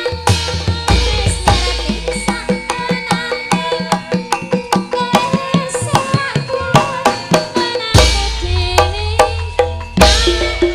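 Javanese gamelan (karawitan) playing live through a PA, with rapid kendhang hand-drum strokes over ringing metallophones and deep gong tones, one entering about a second in and another near eight seconds in. A female singer (sindhen) sings over the ensemble.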